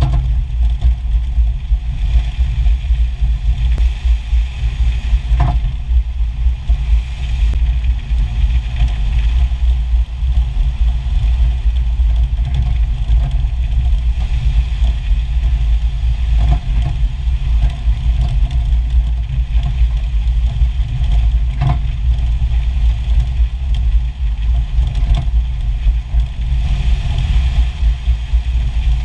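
A Jeep running, with a heavy, steady low rumble. A few faint knocks stand out from it: the clunking noise the vehicle has developed.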